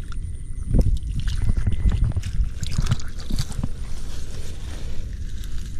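Water sloshing and splashing in irregular strokes over a steady low rumble.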